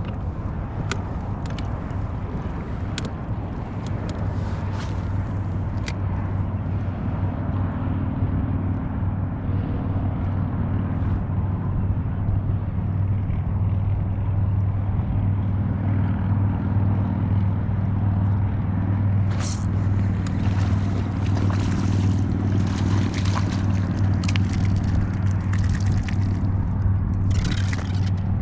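Steady low hum of a boat motor running, getting a little louder partway through. A few sharp clicks and brief splashy hisses break in.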